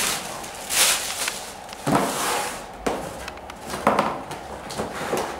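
Cardboard packaging and plastic wrap being handled: a run of rustling, scraping bursts with a few soft knocks as the box is opened.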